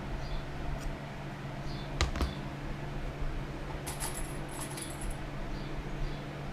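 Small metal objects clicking and jingling: two sharp clicks about two seconds in, then a brief jingle about four seconds in, over a steady low hum.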